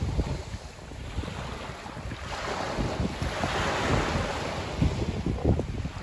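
Small sea waves breaking on a pebble beach and washing back over the stones, with wind noise on the microphone. The hiss of the wash swells about a third of the way in, after a quieter lull.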